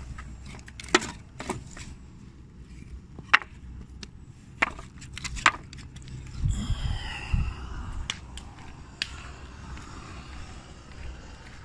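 Pieces of scrap timber knocking together as they are picked up from a wood pile: about five sharp wooden clacks in the first five and a half seconds, then about a second of louder handling noise.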